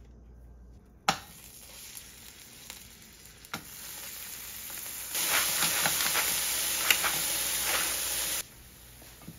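Garlic frying in olive oil in a stainless steel pan, a faint crackling sizzle that grows steadily. About halfway through it turns into a much louder sizzle as bell pepper strips go into the hot oil, then cuts off suddenly near the end.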